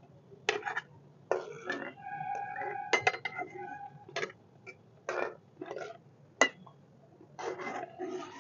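Steel slotted spoon knocking and scraping against a steel kadhai and plate while boiled gram-flour dumplings are lifted out of the water: a series of sharp metal clinks, roughly one a second. One clink about two seconds in rings on for about a second.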